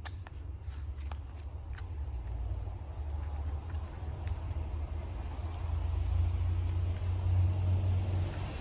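A low, steady rumble that grows louder toward the end, with scattered light clicks and rustles from handling paper packaging.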